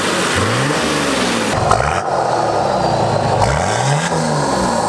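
Nissan Patrol GQ's TD42 4.2-litre six-cylinder diesel engine revving, its pitch rising and falling several times as the ute drives on gravel, with gravel noise under the tyres.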